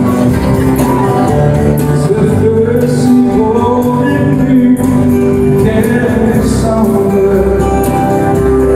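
Live country-and-western music, loud: several acoustic guitars strummed together with a man singing.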